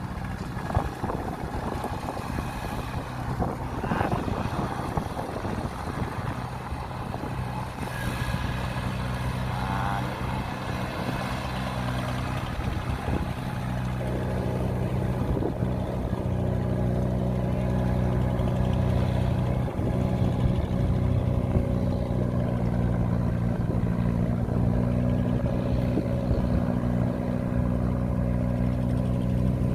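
Diesel engine of a Kubota DC-93 combine harvester running steadily under load while it cuts rice, with a steady hum that grows louder about halfway through.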